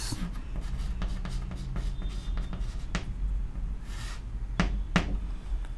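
Chalk writing on a blackboard: a few short, sharp taps and scrapes as the words are chalked, over a low steady hum.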